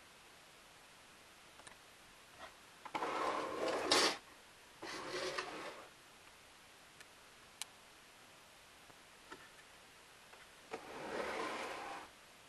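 Three short rubbing sounds, each about a second long, with a few faint clicks between them.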